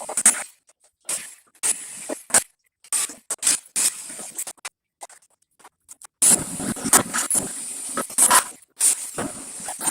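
Scrap air-conditioner parts being dismantled with hand tools: irregular scraping, clanking and knocking of metal, in short stretches that cut off abruptly.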